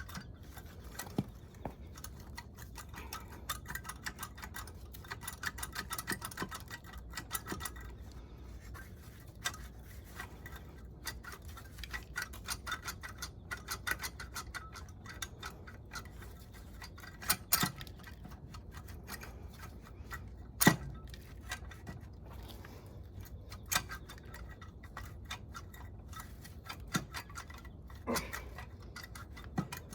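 Hand tools and small metal engine parts clicking and clinking during motorcycle engine disassembly: a steady run of light ticks, with a few sharper metallic knocks about 17 and 21 seconds in and near the end, the one at 21 seconds the loudest.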